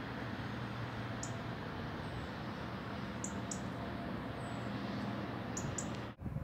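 Steady wind noise with a faint low hum beneath it, and a few short, high chirps from small birds scattered through.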